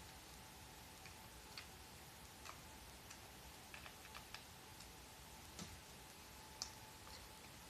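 Faint, irregular small clicks and taps over a faint steady hum, the sharpest click near the end.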